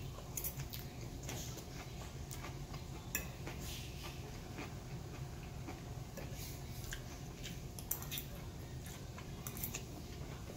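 A metal fork clinking and scraping against a plate as food is picked up, with chewing, in scattered short clicks over a steady low hum.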